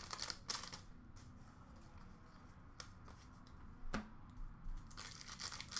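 Trading cards and pack wrappers being handled and sorted by hand: faint rustling and sliding of cards, two light clicks partway through, and more rustling near the end.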